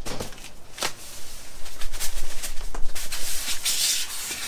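Cardboard box being opened and handled: cardboard surfaces scraping and rubbing against each other, with a few short sharp rips or knocks, busiest from about two seconds in.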